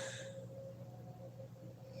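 Sleeping woman's breathing between snores: an airy exhale fades out in the first moment, then a quiet pause with only a faint steady hum before the next snore.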